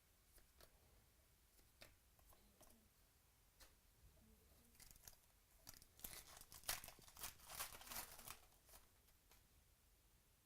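Faint crinkling, rustling and small clicks of trading cards and their plastic or foil packaging being handled, bunched together from about six to eight and a half seconds in, with near silence around them.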